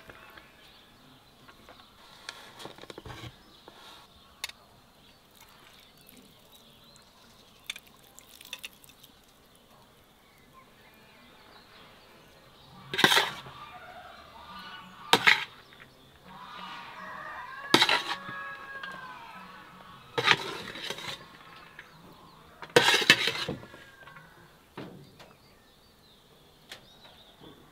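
Metal skimmer scooping cooked rice out of a large metal pan, clinking and scraping against it about five times in the second half. Chickens call faintly in the background.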